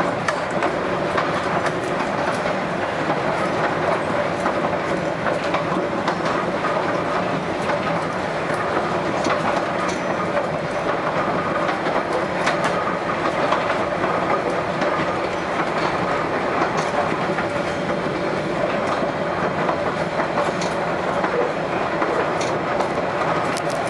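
Savannahlander diesel railmotor running along the track, heard from on board: a steady engine drone with repeated clicks of the wheels over rail joints.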